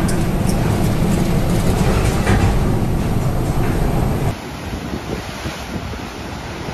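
Loud, steady rumble of storm wind and heavy sea heard from the bridge of a bulk carrier in a storm. About four seconds in it cuts abruptly to quieter surf breaking on a rocky shore.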